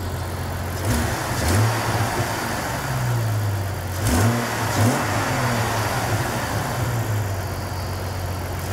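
1997 Jeep Wrangler TJ engine idling on its newly installed exhaust system, running well. It is blipped up in revs a few times: brief rises in pitch about a second in and again about four seconds in.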